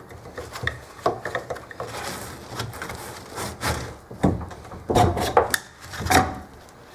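Screwdriver prying at the plastic hub of a trash can wheel: a run of plastic clicks, knocks and scrapes, with louder knocks in the second half.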